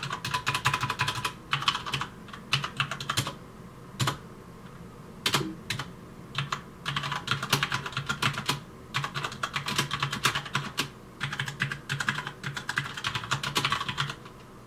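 Fast typing on a Corsair K70 mechanical keyboard with Cherry MX Brown switches: dense runs of clacking keystrokes in bursts, with a couple of short pauses.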